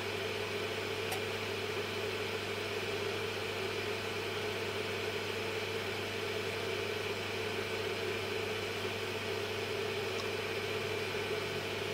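Small soldering fume-extractor fan running, a steady low hum with an even hiss of moving air.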